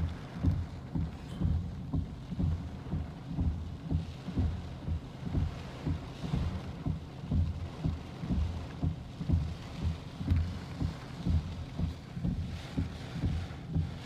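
Storm wind buffeting the phone's microphone: a low, rumbling, irregular pounding of two or three gusts a second over a steady low hum.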